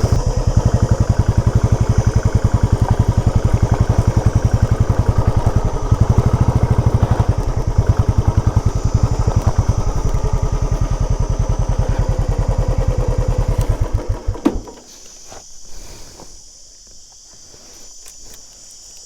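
Motorcycle engine running at steady, low revs with an even, rapid beat, then cutting off suddenly about fourteen seconds in. Crickets chirr steadily behind it and carry on alone once the engine stops.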